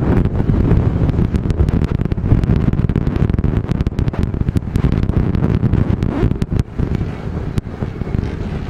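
Wind buffeting the microphone: a loud, low rumble that sets in suddenly at the start and gusts up and down, with many sharp clicks scattered through it.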